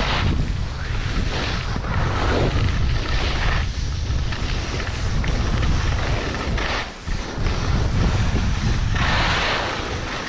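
Wind rumbling on the microphone, with skis hissing and scraping over the snow in repeated swells as the skier turns down the piste.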